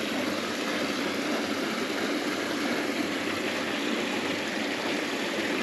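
Stream water running: a steady, even rush of flowing water.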